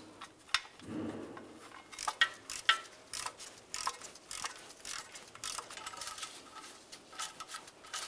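Socket ratchet clicking in short, irregular runs with light metal clinks as the 10 mm bolts of a steel exhaust heat shield are run in and snugged up.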